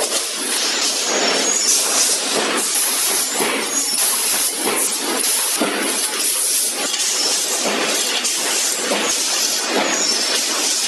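Can-making factory machinery running: a dense, continuous mechanical clatter of irregular sharp knocks over a steady hiss.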